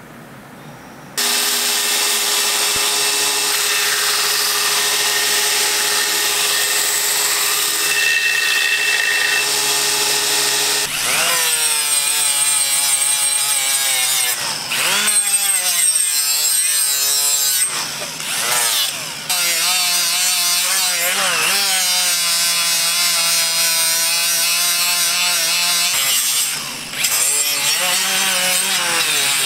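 Small handheld rotary grinder with a red abrasive disc grinding a steel knife blade. It starts suddenly about a second in with a steady high whine. From about a third of the way through, the pitch sags and recovers as the disc bears on and lifts off the blade, with a couple of short let-offs.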